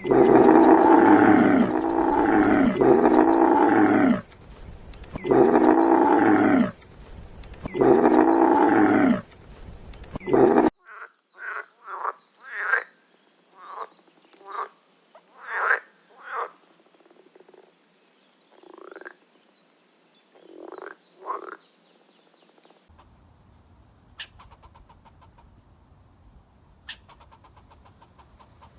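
Animal calls from recordings spliced one after another. First come loud, repeated pitched calls about a second long, each arching in pitch. About ten seconds in they give way to shorter, quieter single calls at irregular spacing, and near the end only a faint background with a few clicks remains.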